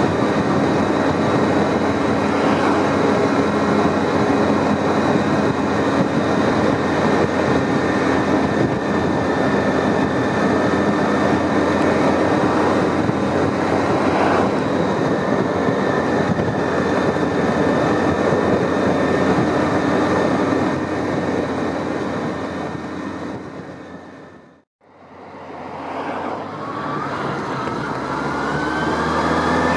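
Honda CB750's air-cooled inline-four engine running at steady cruising speed under heavy wind rush on the microphone. About 24 seconds in the sound fades out and back in, and near the end the engine pitch rises as it accelerates.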